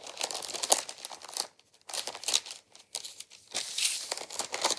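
Parchment paper crinkling in short, irregular rustles with brief pauses as it is lifted and folded to turn up the edges of pastry dough.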